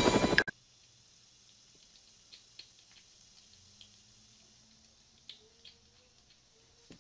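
Helicopter rotor noise with a fast pulsing beat cuts off abruptly about half a second in. Near silence follows, with a few faint scattered clicks.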